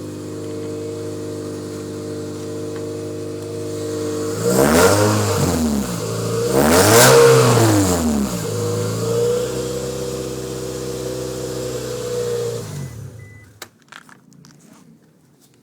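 Scion tC four-cylinder engine idling, revved twice in quick succession and dropping back to idle, then shut off near the end, followed by a few clicks. The exhaust note is raw from a badly leaking exhaust: a hole in the muffler and burnt-out gaskets.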